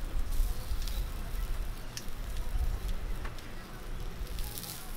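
Chicken and green-onion skewers sizzling on a hot metal grill grate, with a few sharp ticks and pops through it over a steady low rumble.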